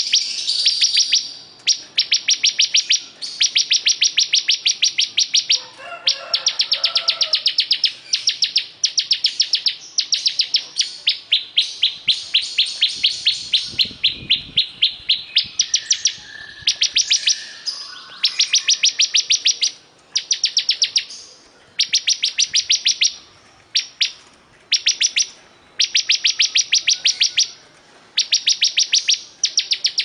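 Ciblek kristal (bar-winged prinia) singing continuously: a fast trill of high, evenly repeated notes, delivered in runs of one to two seconds with short breaks between them.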